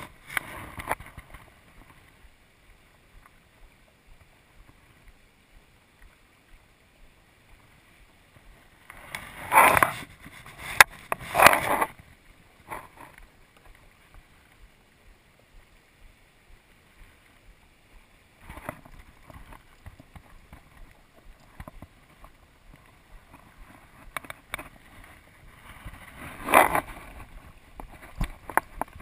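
A river's current flowing with a faint, even hiss, broken by loud rustling bursts about ten and twelve seconds in and again near the end.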